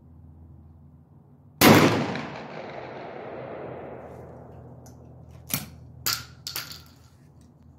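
A single 12-gauge rifled slug fired from a Baikal IJ-58 double-barrel shotgun: one sharp, very loud shot with a long echo dying away over about two seconds. A few sharp clicks and clacks follow a few seconds later.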